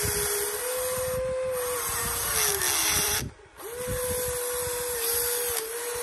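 Electric motors of a Huina RC excavator whining steadily as the boom and bucket work, the pitch sagging slightly now and then under load. The sound cuts out briefly a little over three seconds in, then starts again.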